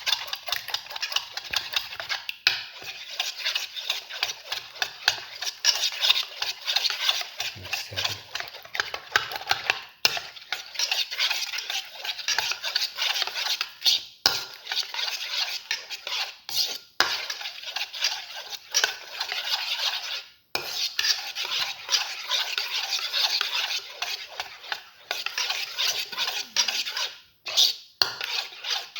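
A utensil beating eggs in a bowl: a fast, continuous clatter of strokes against the bowl, stopping briefly a few times. The eggs are being mixed with cinnamon powder and chili sauce.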